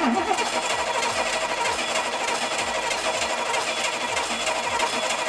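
Starter cranking an engine over without firing: a steady, even whir that starts suddenly. The spark plugs are out and the injectors unplugged, so it spins over quickly with no compression to slow it.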